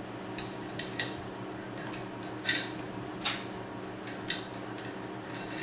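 Metal T-slot nuts clinking against aluminium extrusion as they are fitted into its slots: a handful of short, sharp metallic clicks, the two loudest about a second apart in the middle.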